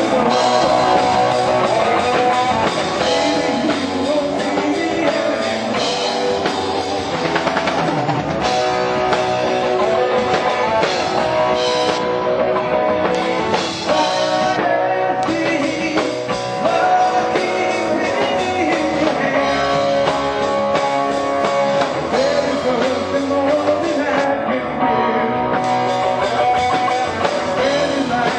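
Live rock band playing: electric guitars and bass over a drum kit.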